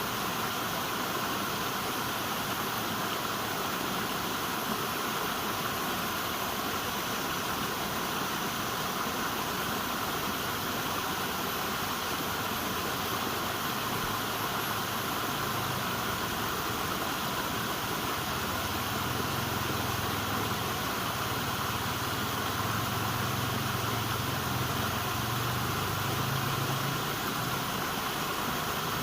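River water flowing, a steady rushing with no let-up. About two-thirds of the way in, a low rumble like a distant engine rises under it for several seconds, then fades.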